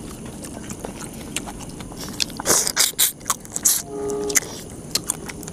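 Two people eating crab curry and rice by hand: wet chewing, lip-smacking and slurping, with quick clicks and smacks throughout. A brief hummed "mm" comes about four seconds in.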